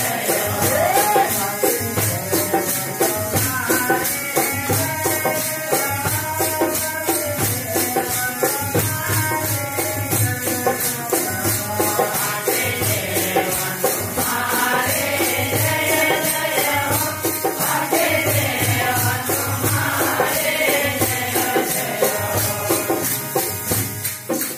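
Devotional bhajan kirtan: men's voices singing with a drum and jingling metal hand percussion keeping a fast, even beat.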